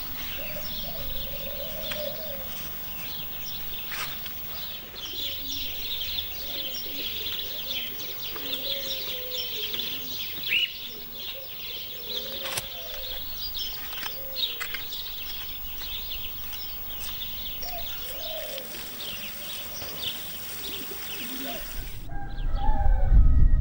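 Garden birdsong: a steady chorus of small-bird chirps over repeated low dove coos. A loud low rumble comes in near the end.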